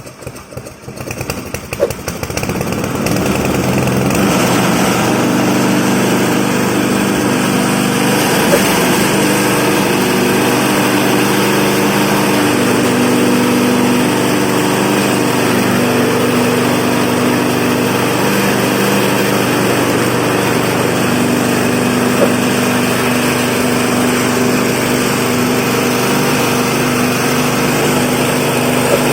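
Motor of a suji and pandan leaf chopping and grinding machine starting up, coming up to speed over the first few seconds, then running steadily.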